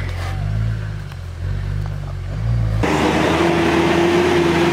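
Toyota four-wheel-drive engine revving up and down at low pitch as it works up a steep rutted climb. About three seconds in, the sound changes abruptly to a louder, steady engine drone with a broad hiss.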